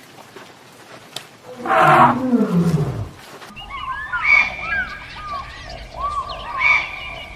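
An animal's loud drawn-out call that slides down in pitch. It is followed by a stretch of many short high chirps with two louder calls, like birds.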